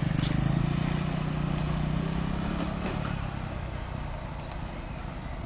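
Motor scooter engine running as the scooter rides away, its steady hum fading over the first three seconds.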